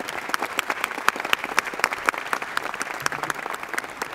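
Applause from the seated legislators: many hands clapping at once, a dense, irregular patter.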